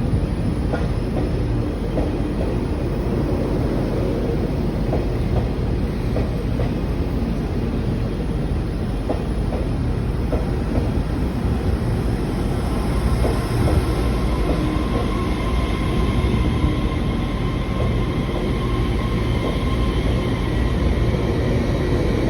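Taiwan Railway EMU3000 electric multiple unit pulling into a station: a steady rumble of wheels on rails with scattered clicks. Faint high tones come in over the second half.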